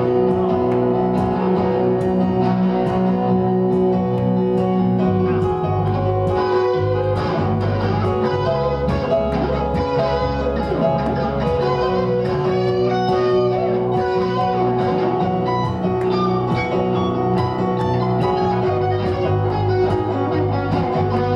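Live band music led by guitar, with plucked and strummed chords over a bass line at a steady level.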